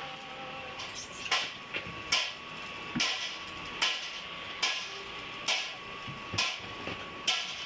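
One-bag mortar mixer running on test, a steady mechanical hum and faint whine with a sharp knock repeating at an even pace, a little more than once a second.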